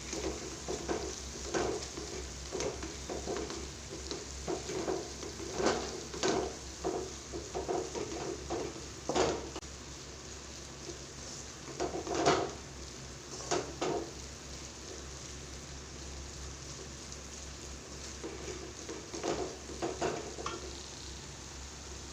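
Onion-tomato masala frying in oil in a pan with a steady faint sizzle, while a spoon scrapes and knocks against the pan in spells of stirring. The stirring stops and starts, with longer pauses near the middle and again later.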